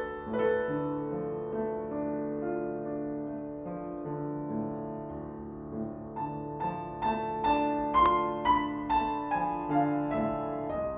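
Background piano music of slow, held notes. About halfway through, a run of notes is struck about twice a second.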